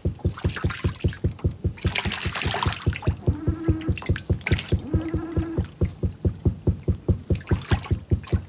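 Sounds of a small fishing boat on the water: a rapid, even pulsing of about six beats a second with water sounds, a short hiss about two seconds in, and two brief held tones a little later.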